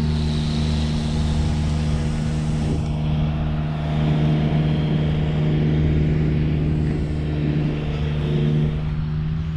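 A steady, low engine hum that holds one unchanging pitch throughout.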